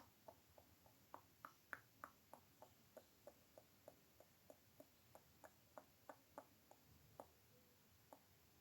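Mouth sounds made close to the microphone: a regular run of short, soft clicks from the tongue and lips, about three a second, thinning out near the end.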